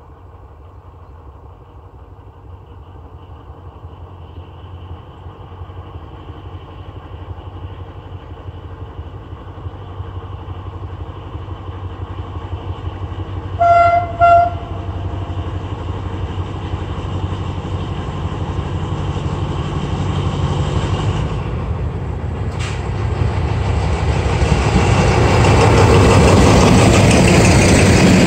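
DE24000-class diesel-electric locomotive with a Pielstick 16 PA4 V185 engine approaching with empty flat wagons, its engine rumble growing steadily louder. Two short horn blasts about halfway through; near the end the locomotive and wagons run past loudly.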